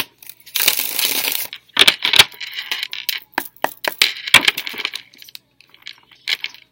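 A deck of tarot cards being shuffled by hand: a longer riffling rustle about half a second in, then quick clicks and slaps of cards against each other, thinning out toward the end.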